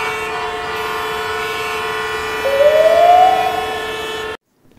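Intro sound effect: a steady buzzing drone with a siren-like tone rising through the middle, cut off suddenly near the end.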